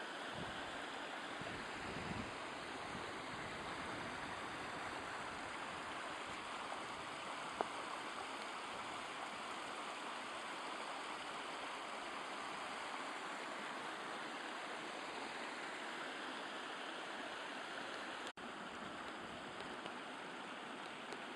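Shallow rocky mountain stream rushing and splashing down small cascades, a steady even rush of water.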